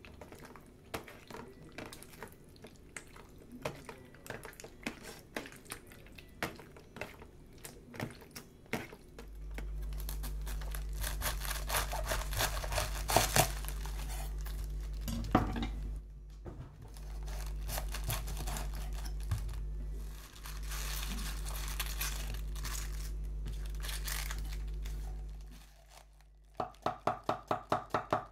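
Fingers kneading pork slices into a soy and ginger marinade in a metal tray, making small wet squishes and taps. Then a head of cabbage is pulled apart and cut with a kitchen knife, with crisp tearing and crunching of the leaves over a steady low hum. Near the end comes rapid knife chopping on a wooden cutting board, about six strokes a second, as the cabbage is shredded.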